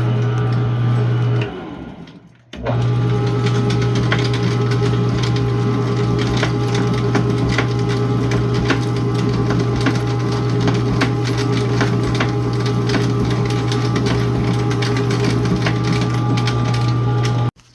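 Homemade plastic grinder running: a broken paper shredder's electric motor driving a dual-shaft mini shredder, with a steady hum and a dense crackle of plastic bits being chewed up. The motor switches off about a second and a half in, winds down, restarts about a second later, then runs steadily and cuts off suddenly near the end.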